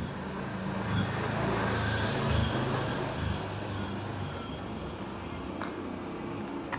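A motor vehicle passing close by: a low engine rumble that swells about a second in and fades after the middle.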